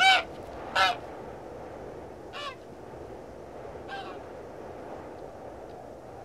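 A gull calling four times in short, slightly falling cries, the first two loudest, over a steady background hiss.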